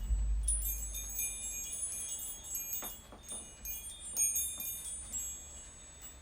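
Chimes struck and ringing in a scattered, tinkling run, their bright tones overlapping and slowly fading. Under them, the deep ring of a drum struck just before dies away over the first second.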